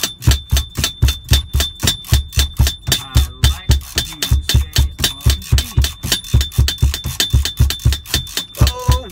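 Hip-hop drum beat playing without vocals: kick drum and hi-hat hits in a steady, fast pattern.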